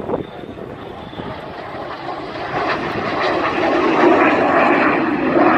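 Air show aircraft flying over, their engine noise growing louder over the first few seconds as they approach, then holding steady and loud.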